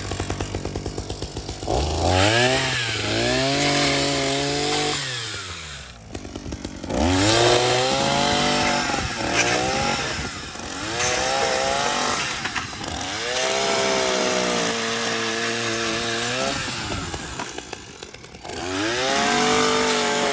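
Proyama 42.7cc two-stroke pole saw engine idling, then revved up about five times, each time held at high speed for a few seconds and dropped back, as the chain is worked through branches.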